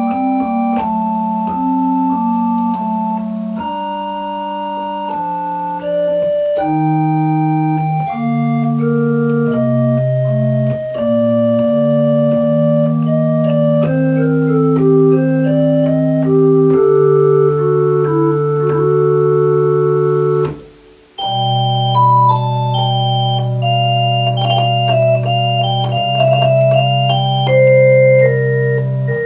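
A two-manual digital organ playing a Baroque piece in held, sustained chords with lines moving step by step above and below. There is a short break about 21 seconds in, and the music then resumes with a brighter, higher, busier upper line.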